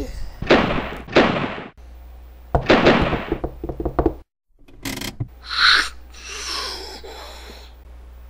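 Added sound effects: a string of sudden knocks and thuds with short noisy swishes, broken by a moment of dead silence about four seconds in.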